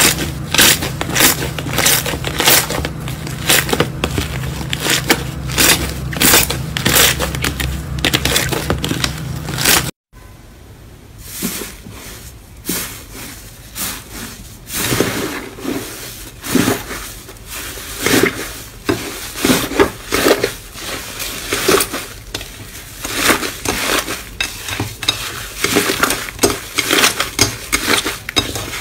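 Hand-kneaded slime crackling and popping: soft pink slime stretched and squeezed with a dense run of sticky clicks over a low steady hum. After an abrupt cut about ten seconds in, crumbly green slime is pressed and squished, giving irregular crunchy crackles in pulses.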